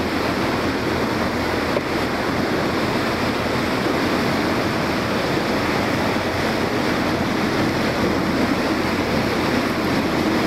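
Steady rush of wind and choppy sea water around a small boat, with wind blowing on the microphone.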